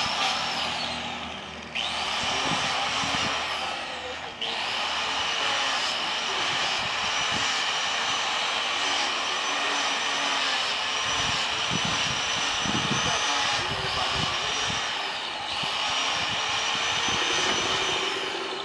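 A handheld electric power tool whining steadily at high speed while the elephant's foot nails are trimmed. It is switched off and on a few times with short gaps, and its pitch falls away as it spins down near the end.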